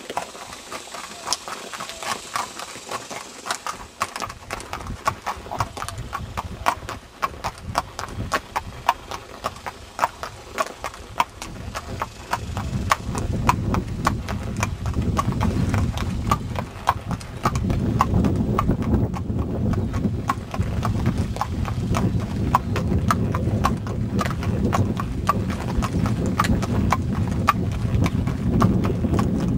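Hooves of a Quarter Horse clip-clopping on a paved road at a walk: a steady run of sharp hoof strikes. About twelve seconds in, a low rumble rises under them and continues.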